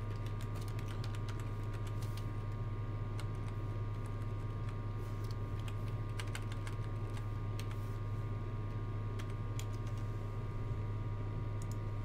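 Irregular computer keyboard keystrokes, clicking in scattered runs, over a steady low electrical hum.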